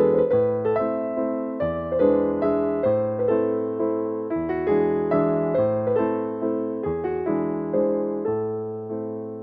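Background music: a soft piano piece of gently repeated chords, each note fading after it is struck, changing chord about every second and a half.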